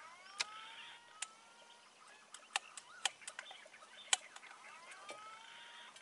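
Green pigeon's whistled call: two long rising whistles, one at the start and one about four seconds later. A scatter of sharp clicks falls in between, the loudest sounds in the stretch.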